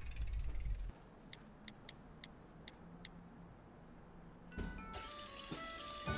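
Kitchen tap running into a sink as a winter melon is washed under it, starting about a second and a half before the end, with soft music. Before that comes a low rumble in the first second, then a quiet stretch with a few faint chirps.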